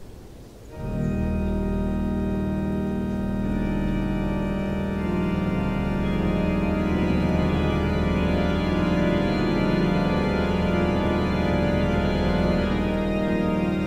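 Background music of sustained organ chords that come in abruptly about a second in and grow fuller a few seconds later.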